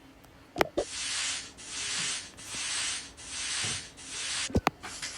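Five even strokes of scrubbing, each under a second, as a cleaning tool is worked back and forth over a crack that won't come off. A light click comes just before the strokes and another near the end.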